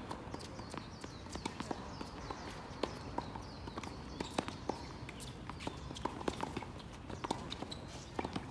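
Irregular sharp clicks and knocks of racket-sport play echoing in a sports hall, several a second, with a few short faint squeaks.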